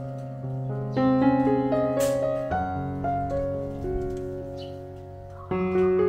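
Background piano music: a slow run of sustained notes, with new chords entering about a second in and again near the end.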